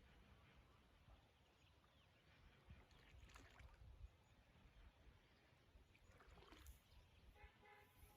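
Near silence: a faint low rumble with a few faint, brief rustles.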